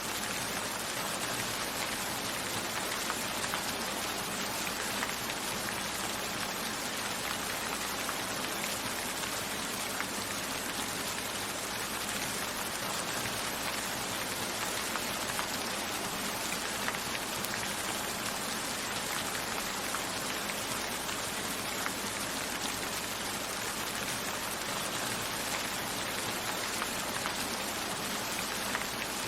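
Steady rain falling, with scattered individual drops tapping on a window glass.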